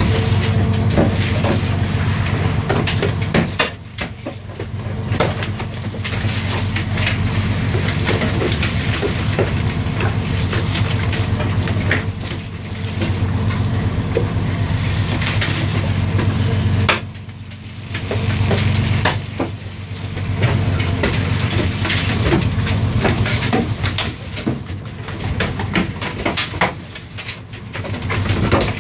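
Longline hauling gear running on a fishing boat: a steady low machinery hum under a constant clatter and rattle of line and hooks coming aboard over the roller. The din drops briefly twice.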